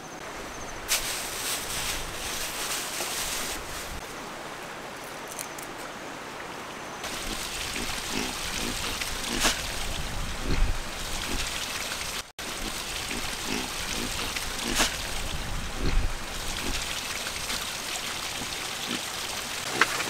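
Water running and trickling steadily onto rocks, with scattered small knocks and rustles. The background shifts abruptly about seven seconds in and drops out for an instant around twelve seconds.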